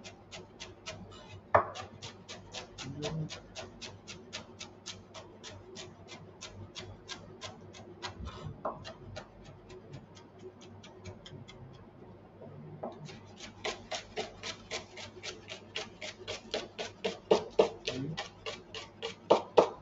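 Kitchen knife chopping greens on a cutting board in a fast, even rhythm of about four strokes a second, with a short pause a little past the middle.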